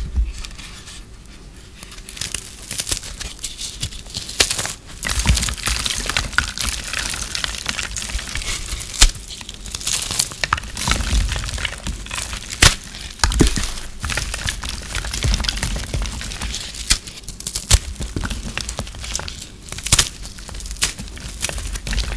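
Hands breaking and crushing brittle, microwave-puffed soap: a continuous dry crunching and crackling, dense with small sharp snaps and several louder cracks.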